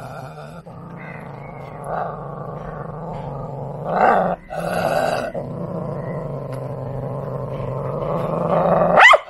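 Lhasa Apso growling steadily in a low rumble, swelling louder several times, then breaking into a sudden sharp, louder snarl near the end: an aggressive warning at the person approaching it.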